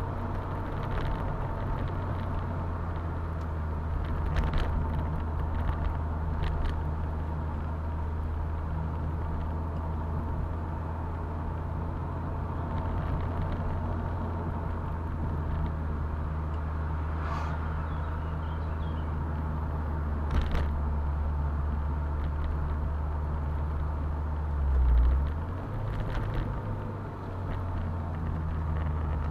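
Convertible car driving, with a steady low engine hum and road noise. There is a brief low thump near the end, after which the engine note shifts slightly.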